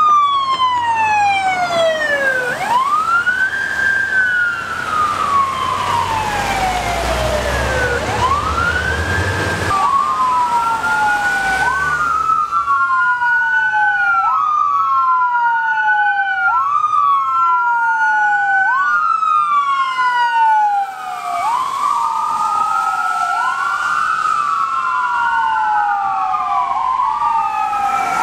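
Fire department emergency vehicles' sirens wailing. For the first ten seconds one siren wails slowly up and down while a passing vehicle rumbles underneath. From about ten seconds in the wails come faster, about every two seconds, and a second siren overlaps near the end.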